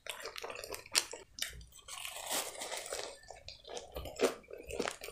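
Close-miked chewing of a French fry, with irregular crunches and sharp mouth clicks.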